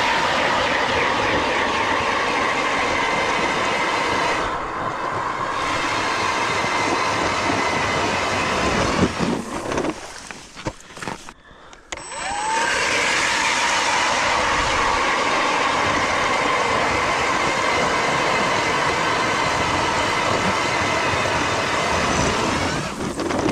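Power ice auger drilling two holes through the ice, one after the other. Each time the motor spins up with a rising whine, runs steadily for about ten seconds under load and then stops; the first run ends in a few seconds of uneven noise, as the bit breaks through the ice.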